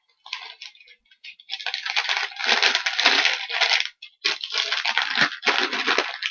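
Clear plastic packaging crinkling as it is handled. It is light at first, then dense from about a second and a half in, with a brief pause about four seconds in.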